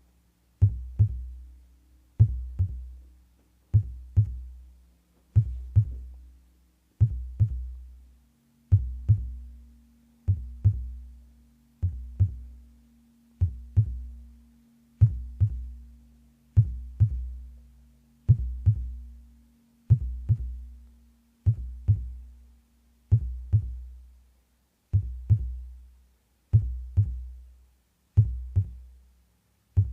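Heartbeat sound: deep paired lub-dub thuds in a slow, very even rhythm, one beat about every 1.6 seconds, with a faint steady hum underneath.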